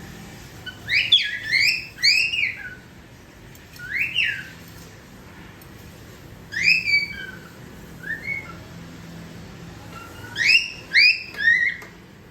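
Cockatiel whistling its learned song phrase: clear whistled notes that rise and fall in pitch, in a run of three about a second in, single notes in the middle, and another run of three or four near the end.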